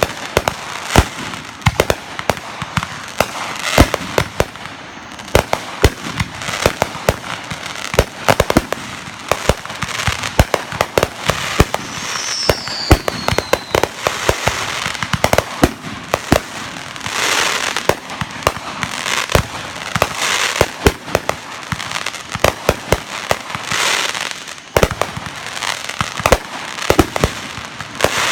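Fireworks going off: rapid sharp bangs and cracks throughout, with several spells of fizzing crackle and one whistle falling in pitch about twelve seconds in.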